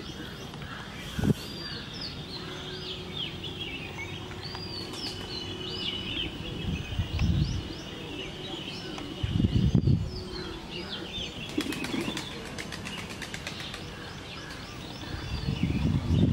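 Pigeons' wings flapping in a few short bursts, over steady chirping of small birds.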